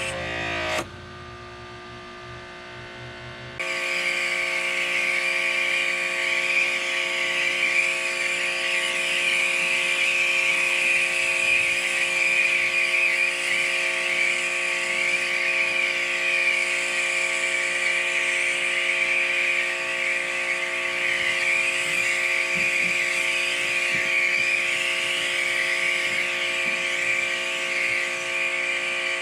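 Ryobi electric pressure washer starting up about three and a half seconds in, then running steadily: the motor and pump give a constant whine while the water jet hisses.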